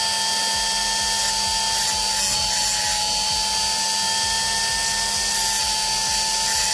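Mini rotary tool (micro grinder) running at a low speed setting, lightly grinding a plastic latch part where the pin strikes. It holds a steady tone throughout.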